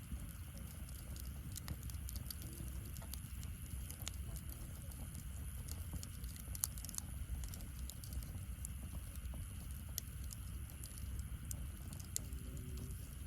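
Wood fire in a fire stand crackling, with irregular small pops and one sharper pop about two thirds of the way through, over a steady low rumble.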